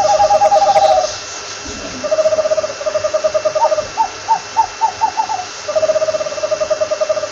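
Owl calling in fast trills of short hoots, each run lasting one to two seconds. In the middle comes a slower run of separate hoots that rise in pitch.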